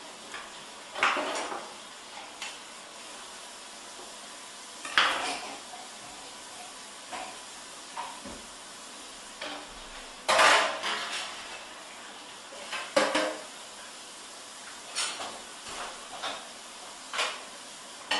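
Knife cutting through a whole fish on a cutting board along the backbone, heard as irregular scrapes and knocks spaced a second or more apart, the longest and loudest scrape about ten seconds in, over a steady background hiss.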